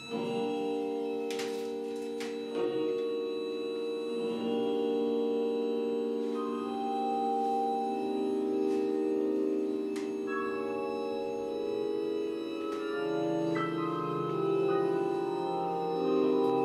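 Music of slow, sustained organ-like chords that shift every few seconds, with a lower note joining about thirteen seconds in.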